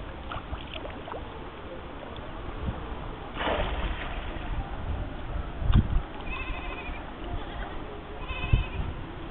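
A goat bleating twice in the second half, two short quavering calls about a second and a half apart, with a couple of dull thumps and a brief rush of noise earlier.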